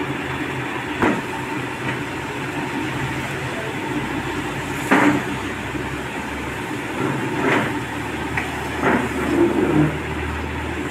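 Steady low rumbling background noise with a few sharp knocks, the loudest about five seconds in. Near the end a steel ladle stirs and scrapes dal in a steel pan.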